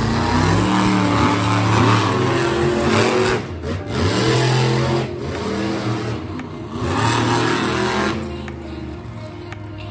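Monster truck engines revving hard, their pitch rising and falling as the trucks drive around the dirt course, easing off in the last couple of seconds.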